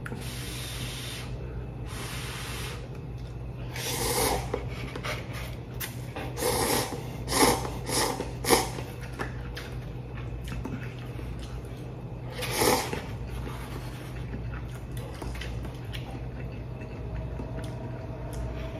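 A man slurping instant cup ramen noodles with chopsticks: two long slurps in the first few seconds, a run of shorter slurps midway, and another about two-thirds through, over a steady low electrical hum.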